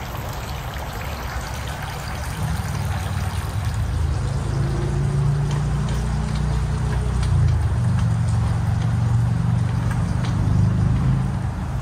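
Water trickling from a tiered stone garden fountain. About two and a half seconds in, a steady low mechanical hum comes in over it and becomes the loudest sound.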